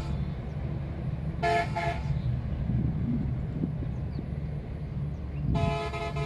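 Train horn sounding: two short toots about a second and a half in, then a longer blast starting near the end, over a steady low rumble.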